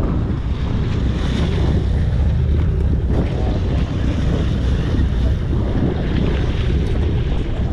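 Wind buffeting the microphone over the steady low rumble of a sportfishing boat and the sea around it.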